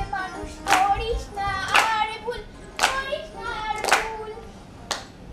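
A child singing a song, with hand claps in time about once a second.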